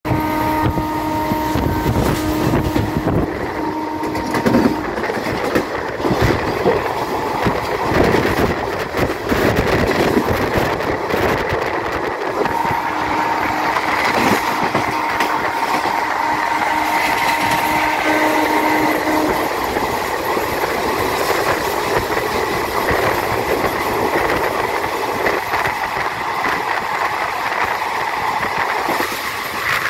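Moving train running along the track, heard from an open doorway: wheels clattering over rail joints and points amid steady rushing air. A steady tone sounds over the first few seconds and again midway through.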